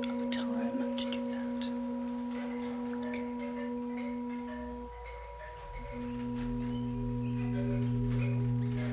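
Background meditation music of steady, pure sustained tones layered at several pitches. The middle tone drops out briefly about five seconds in, and a deeper tone comes in about a second later.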